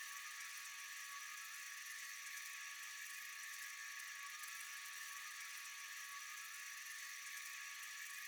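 Steady high-pitched chorus of night insects trilling, an even shrill wash with a few constant tones and no change.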